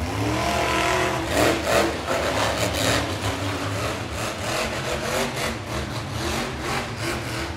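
Monster truck engines running and revving. The pitch climbs steeply in the first second or two, then rises and falls over a steady low engine sound.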